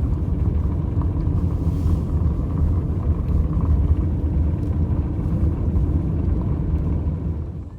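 Steady low rumble of a car in motion, dipping in level just before the end.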